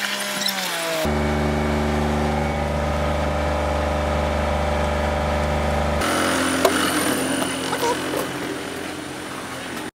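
Small passenger ferry's engine running steadily, heard on board. About six seconds in it cuts off abruptly to open-air noise with a single sharp knock.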